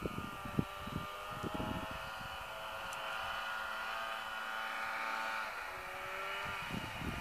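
Arctic Cat two-stroke snowmobile engine running at a steady high whine as the sled approaches, slowly growing louder, then easing off with a drop in pitch about five and a half seconds in.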